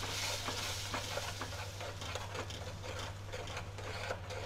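Metal spoon stirring and scraping through tomato-and-spice masala in a steel kadai, a run of small scrapes and clicks against the pan, over a steady sizzle of the tomato starting to fry in the oil.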